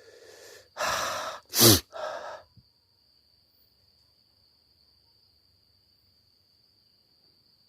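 A person's breathy exhalations and a sigh close to the microphone, four short bursts in the first two and a half seconds with the loudest about halfway through them. A cricket chirs steadily at a high pitch behind them.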